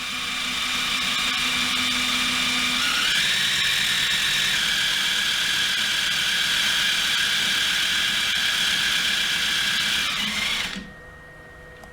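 Electric drill running steadily, spinning a polyurethane motor-mount bushing while a shaping rasp held at an angle shaves a bevel onto its edge. The whine steps up in pitch about three seconds in, and the drill stops about a second before the end.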